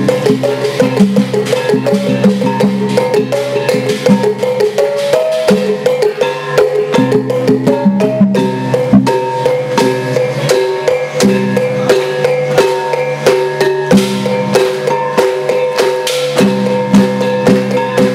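Bamboo poles clapped together and knocked on their base poles in a quick, steady beat, over a mouth-blown wind instrument holding sustained chords that shift from note to note.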